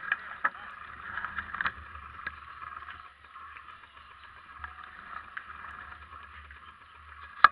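Steady outdoor background noise with a low rumble from the moving camera and scattered short clicks and knocks. A sharper, louder click comes near the end.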